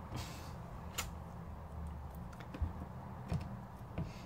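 A few light, scattered clicks and taps from handling the phone and tools on the work bench, the sharpest about a second in, with a brief hiss near the start. A steady low hum runs underneath.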